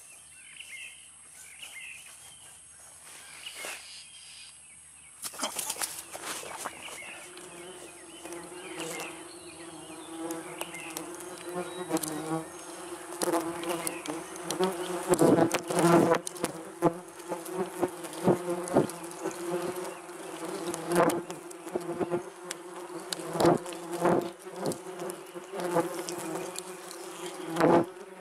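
Yellow jackets buzzing at their ground nest: a steady, pitched drone of many wasps that starts suddenly about five seconds in and grows louder, rising and falling in loudness with sharp peaks.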